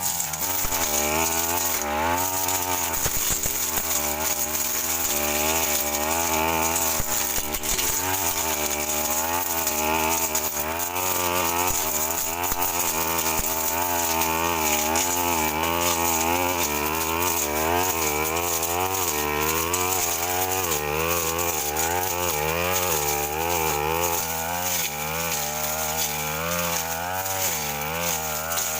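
Stihl FR 3001 backpack brush cutter's two-stroke engine running hard, its pitch wavering up and down without pause as the blade cuts through woody scrub.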